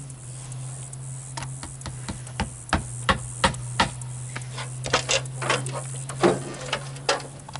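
Hand hammer tapping on the coop's wooden frame: about twenty sharp, irregular knocks, some coming in quick pairs. A steady low hum runs underneath.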